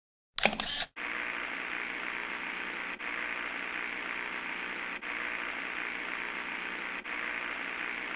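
Channel logo intro sound effect: a short loud burst about half a second in, then a steady static-like noise with a faint hum that dips briefly every two seconds.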